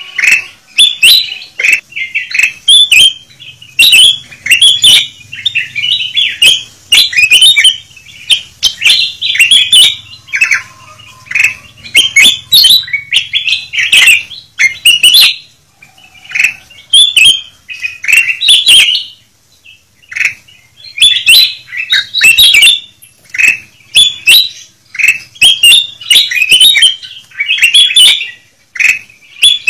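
Ruby-throated bulbuls (kutilang emas), several at once, calling noisily: dense, overlapping short chirping calls in quick succession, with a few brief pauses.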